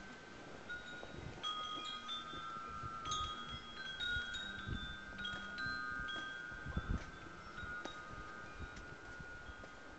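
Chimes ringing: several clear tones sound at irregular moments and ring on, overlapping one another. A couple of low thumps come about seven seconds in.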